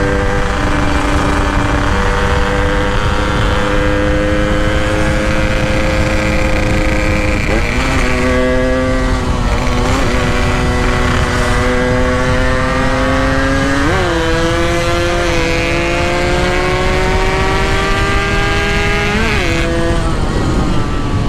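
Two-stroke motorcycle engine pulling at road speed, its pitch climbing slowly and dipping sharply a few times as the gears change, over a steady rush of wind noise.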